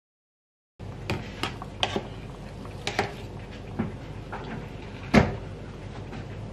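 Metal ladle knocking against a stainless steel pot while scooping broth: a few scattered sharp knocks and clicks, the loudest about five seconds in, over a steady low hum.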